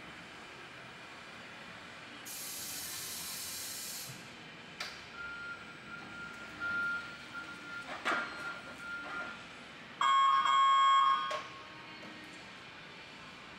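Electric order picker at work: a high hiss as the hydraulic platform lowers, then a few clicks and knocks, and a loud horn blast lasting about a second and a half.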